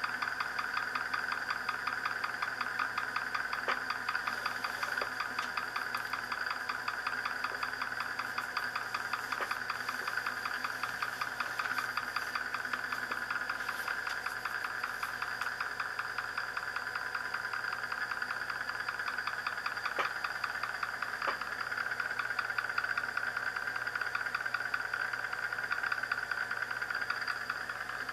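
Euler's disc of polished tungsten carbide with a brass weight spinning on a glass mirror, making a steady, rapid buzz of fine even ticks as it rides on the hard, low-friction glass in its early, top-like spinning phase.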